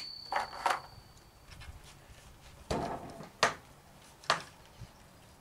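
A few separate knocks and clicks of a scoped M1A rifle being handled and settled on a bench rest, the loudest near the middle; no shot is fired.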